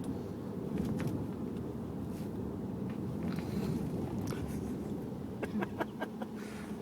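Snoring: a steady low rumbling breath, with a breathier stretch partway through and a quick run of small mouth clicks near the end.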